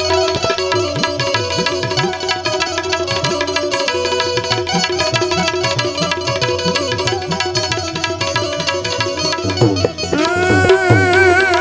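Instrumental interlude of live Gujarati devotional bhajan music: rapid tabla strokes over steady held notes. About ten seconds in, a new wavering held melody line comes in on top.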